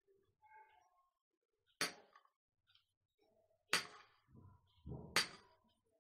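A metal spoon clinking against ceramic serving dishes and plates: three sharp clinks about two seconds apart, with soft handling noise just before the last.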